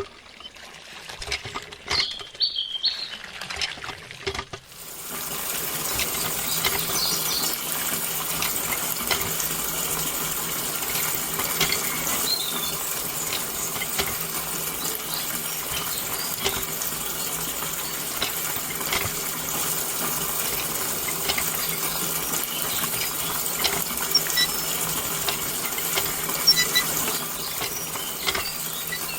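Running water splashing steadily, with many small clicks and drips, starting about five seconds in; before that, only a few scattered light clicks.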